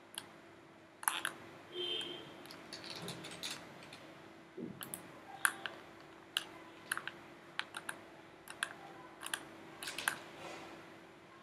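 Quiet, irregular clicks of a computer keyboard and mouse being worked, some in quick little runs, over a faint steady hum.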